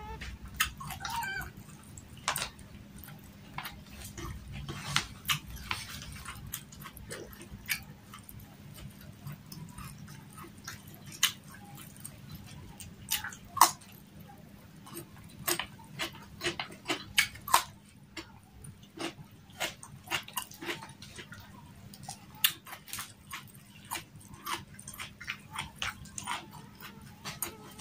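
Close-miked eating: wet chewing, lip smacks and sharp mouth clicks at irregular intervals as a person eats rice and fried milkfish by hand.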